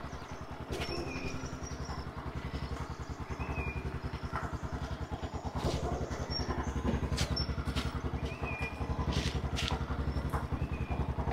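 A small engine running steadily with a fast, even beat, with a few short bird chirps now and then.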